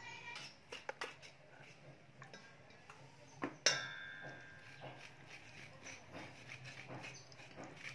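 Metal spoons scraping the flesh from halved unripe bananas, with soft scrapes and light clicks. Near the middle a spoon strikes the stainless steel bowl once, leaving a short metallic ring.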